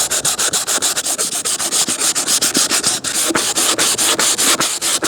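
Rapid back-and-forth hand sanding or scrubbing of surface rust on a car's steel hatch, about eight strokes a second.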